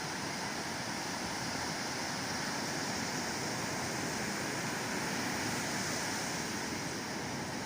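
Steady rushing of ocean surf.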